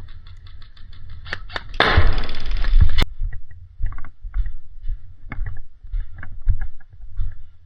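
Airsoft gun firing: a rapid run of shots, then a louder full-auto burst of about a second that stops abruptly. Scattered knocks and rustling follow.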